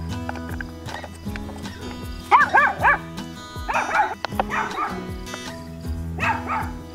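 Background guitar music with a dog barking in short bursts: three quick barks a little over two seconds in, then more near four seconds and again near the end.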